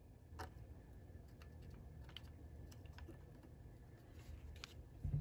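Faint scattered clicks and light taps from soldering work on a circuit board's underside: a soldering iron and a bare wire being handled at the solder pads, over a low steady hum. A soft thump comes near the end.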